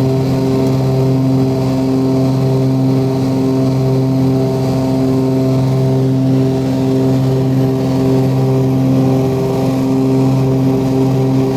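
The Cessna 340A's twin Continental TSIO-520 turbocharged piston engines and propellers running at steady power, a constant loud drone.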